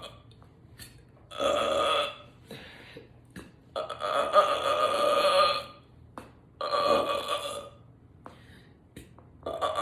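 A woman belching: three drawn-out burps, the middle one nearly two seconds long, with a fourth beginning near the end.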